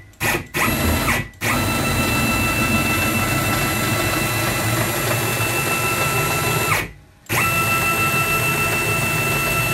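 Stepper-driven CNC router gantry travelling along its twin ball screws at about 2,000 mm/min. It makes a steady motor whine with a crunchy, uneven running noise. A few short jerks come first, then a long move that stops briefly about seven seconds in, then another move. The crunchy, intermittent sound comes from one ball screw that is still slightly bent and has worn itself in.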